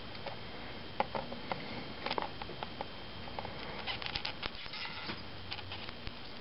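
Soldering flux crackling and spitting with small irregular pops at a soldering iron's tip as tin solder melts into a thin sheet-steel wheel rim, with a cluster of pops about four seconds in as more flux paste is added.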